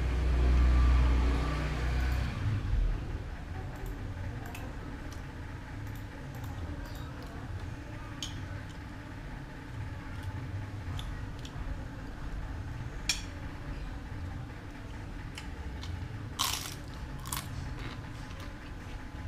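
A person eating crunchy food: chewing and crunching, with small clicks of a spoon on a plate. There is a low rumble in the first couple of seconds, and two sharp crunches near the end.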